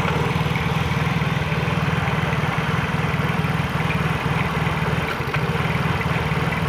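Yamaha Mio J scooter's fuel-injected single-cylinder engine idling, the idle rising and falling. The mechanic puts the unsteady idle down to the idle speed control (ISC) not having been reset after the throttle body was cleaned.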